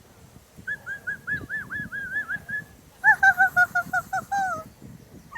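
A parrot calling in two runs of quick, repeated honking notes, the second run louder and starting about three seconds in.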